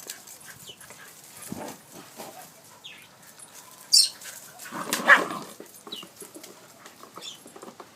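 Pet dog vocalising, with one louder short bark-like burst about five seconds in and a few faint high whines around it.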